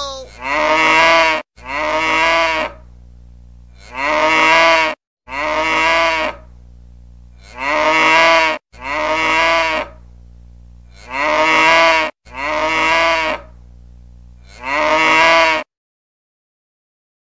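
Cow mooing, a recorded moo looped as a message ringtone: about nine calls of roughly a second each, mostly in close pairs, each rising and falling slightly in pitch. The calls stop about a second and a half before the end.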